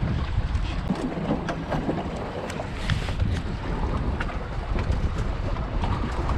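Wind buffeting the microphone and water washing and splashing against the hull of a Wanderer sailing dinghy under way, with a low rumble and short sharp ticks scattered throughout.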